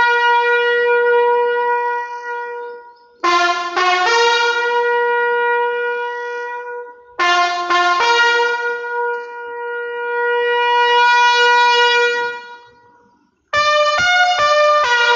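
A horn blown in four long calls, each opening with two or three quick short notes and then holding one steady note for several seconds before fading; the first is already sounding at the start and the last begins near the end.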